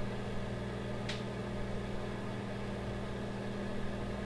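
Microwave oven running with a steady electrical hum. A brief faint high tick comes about a second in.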